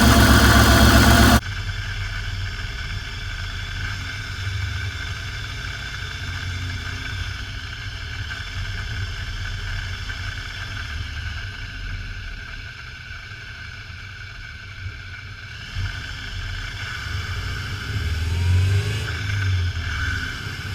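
GM 3800 V6 engine running steadily, with rising pitch near the end as it revs. A loud noisy stretch cuts off abruptly about a second in.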